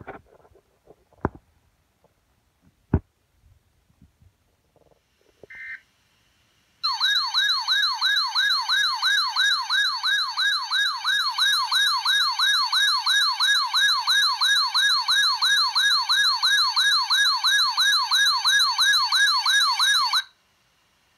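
A few sharp clicks, then an electronic siren tone in a fast yelp. It sweeps up and down about three times a second for roughly thirteen seconds and cuts off abruptly.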